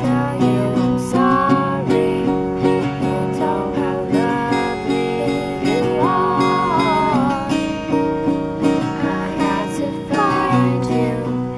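Acoustic guitar strummed in a steady pattern, with a girl singing the melody over it.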